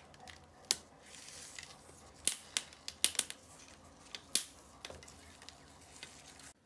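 Whole green peppers charring in a dry nonstick frying pan with no oil, giving a faint crackle and sharp, irregular pops and clicks as their skins blister and they are turned by hand.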